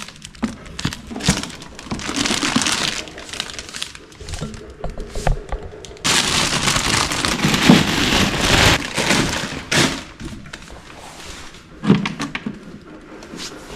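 Clear plastic packaging bag crinkling and rustling as it is handled and pulled off the juicer unit, in irregular bursts that are loudest for a few seconds in the middle.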